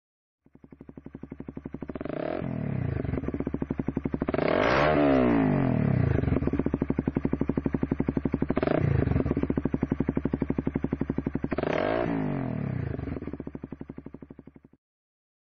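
Honda motorcycle engine idling, blipped four times: each rev rises sharply in pitch and falls straight back to idle. The sound cuts off suddenly near the end.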